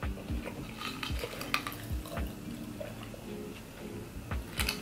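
Close-miked chewing of a bite of pizza, with scattered small clicks and soft knocks from mouth and handling. Near the end a glass of water is picked up for a drink, adding a few sharper clicks.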